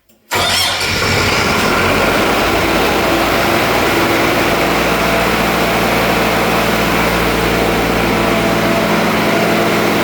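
Fire pump engine, its starter motor newly replaced, starting suddenly and running at a steady speed with the pump's discharge valve shut; it is running normally.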